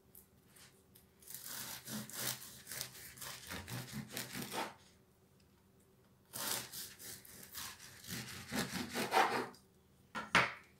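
A long kitchen knife sawing back and forth through a sunflower-seed-crusted loaf on a wooden cutting board, rasping over the crunchy seed crust. It comes in two bouts of strokes with a pause between, then a couple of sharp knocks near the end.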